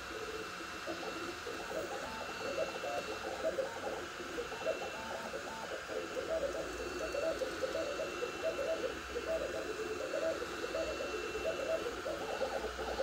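Two Trees Sapphire Plus 3D printer printing at 130 mm/s: its stepper motors whine in short tones that jump rapidly from pitch to pitch as the print head changes direction, over a steady hiss.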